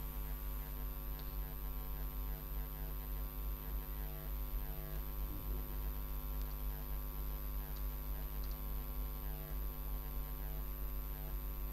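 Steady electrical hum with many overtones, unchanging throughout, with a thin high-pitched whine above it.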